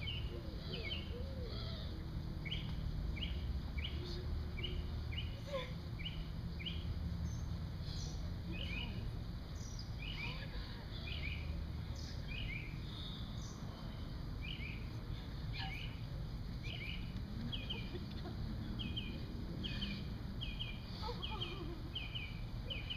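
Birds chirping: many short, high chirps repeat in quick, irregular succession over a steady low background hum.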